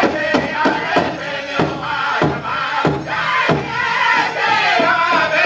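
Powwow drum group singing a fancy shawl contest song: high, wavering voices in unison over a big drum struck in a steady beat, the strokes thinning out briefly past the middle while the voices hold.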